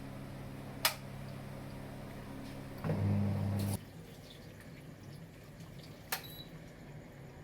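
Voltas Beko DT8S tabletop dishwasher running, a steady hum with water sounds. A sharp click comes about a second in; near the middle the hum swells louder and then cuts off abruptly, and another sharp click follows near the end.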